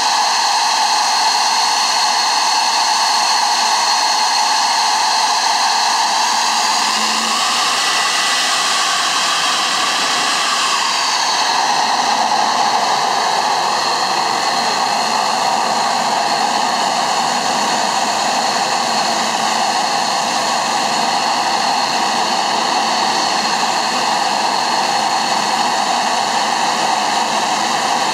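Dassault Mirage 2000D's SNECMA M53 turbofan running on the ground during pre-takeoff checks: a steady rushing roar with high whining tones, which dip slightly in pitch about eleven seconds in.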